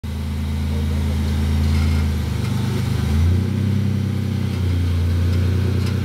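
Rock-crawler buggy's engine running steadily at low revs, with a brief change in revs about three seconds in.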